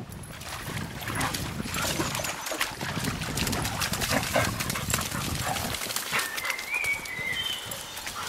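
Two poodles playing in shallow river water and mud: a busy run of splashes and paw scuffles with dog sounds. A short high whistling note comes about six seconds in.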